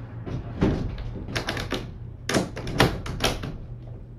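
Irregular sharp clicks and knocks, some in quick clusters of three or four, over a steady low hum.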